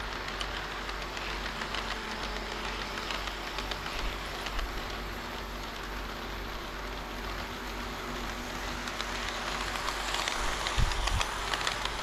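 HO-scale model diesel railcars running on the track: a steady metallic rattle of wheels on rails with rapid fine clicks, growing louder over the last few seconds as a train passes close by, with a couple of low thumps near the end.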